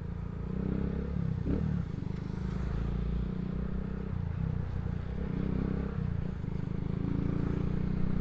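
Motorcycle engine with an aftermarket exhaust running steadily under way, its note shifting a little in pitch as the throttle changes, over a steady hiss of wind and wet road.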